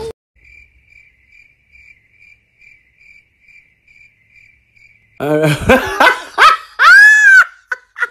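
Faint cricket chirping, a little over two short high chirps a second, in a near-silent gap, the stock awkward-silence effect. About five seconds in it gives way to loud vocal sounds with pitch sweeping up and down.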